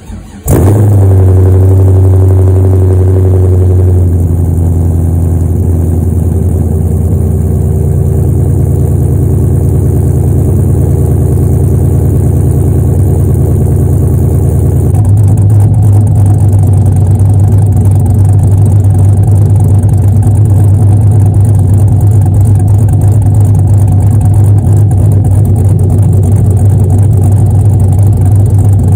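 A Camaro SS's 5.7 L LS1 V8, fitted with a BTR Stage 1 cam, long-tube headers and a true dual exhaust, starts and runs at a loud, steady idle. The idle note changes about 4 seconds in and again about 15 seconds in.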